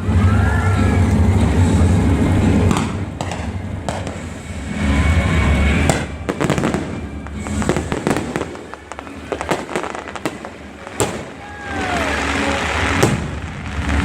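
Fireworks exploding: deep booms and sharp cracks in a rapid barrage, heaviest in the first few seconds and again near the end, with the show's music playing underneath.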